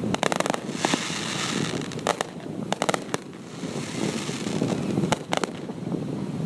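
Fireworks going off: a quick run of sharp cracks at the start, then scattered bangs in small clusters over a steady crackling hiss.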